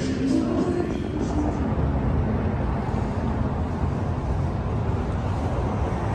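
Steady low outdoor rumble of street traffic, after indoor casino background music cuts off about a second in.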